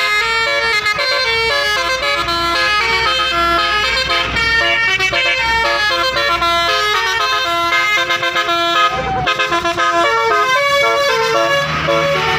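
Bus basuri horn, a multi-tone 'telolet' horn, playing a melody: loud horn notes switching in quick steps, with one short sliding note about two-thirds of the way through.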